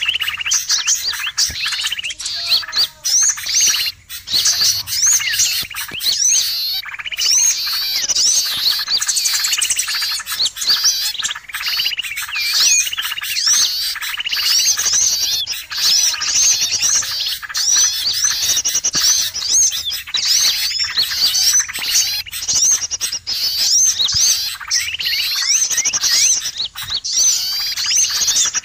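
Bird-trapping lure recording of many small songbirds chirping and twittering at once: a busy, unbroken chorus of high, quick rising and falling notes.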